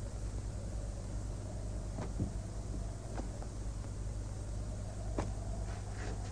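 Steady low electrical hum with a fainter higher tone held above it, broken by a few soft scattered clicks.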